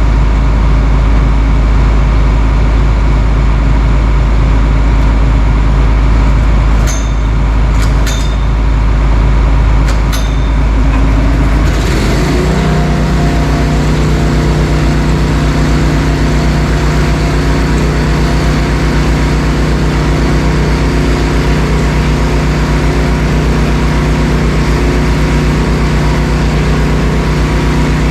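An engine running loudly and steadily, with a few sharp clicks partway through. About twelve seconds in, its note changes and settles into a steadier, even hum.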